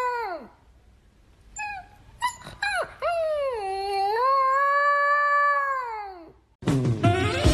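A pet dog or cat howling: a long call falls away, a few short yelps come about two seconds in, then another long call of about three seconds drops off. Music comes in near the end.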